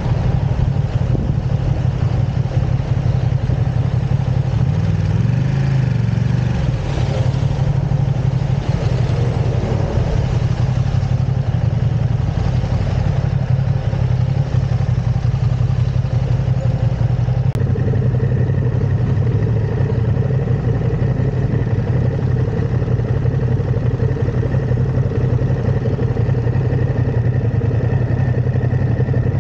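Ducati Streetfighter V2's 955 cc V-twin engine running steadily, with a brief rise in revs about six seconds in.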